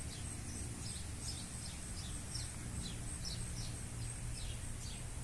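Bird ambience: a songbird chirping repeatedly in short, falling high notes, about two or three a second, over a steady low rumble and a faint high hiss.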